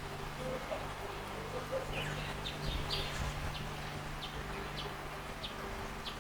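Small garden bird chirping, short high notes about twice a second starting about two seconds in, over the steady trickle of a bird bath fountain with a low hum underneath.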